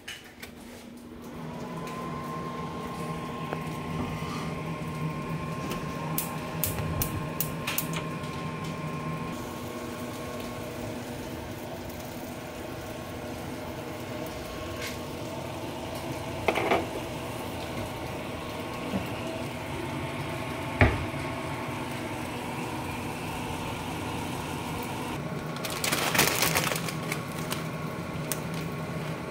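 Kitchen range hood fan switched on by its push button and running with a steady hum. Over it come a few sharp clicks and knocks of kitchen handling, and a short burst of rustling near the end.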